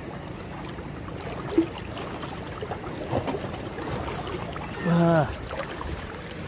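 Small waves lapping and sloshing against shoreline rocks, a steady wash of water. About five seconds in, a short voiced sound, like a brief call, stands out above it.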